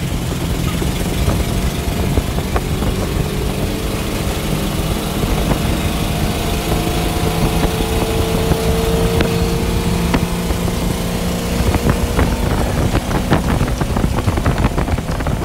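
The 350 HP inboard engine of a 1953 Greavette wooden runabout runs at speed under a rush of wind and water noise. Its note climbs slightly over several seconds in the middle.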